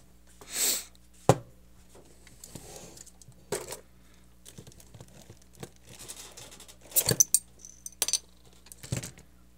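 Handling clatter of a plastic toy blaster and a glass bottle, sharp clicks and clacks, as a metal crown cap is taken off the bottle and drops clinking onto the cutting mat about seven seconds in.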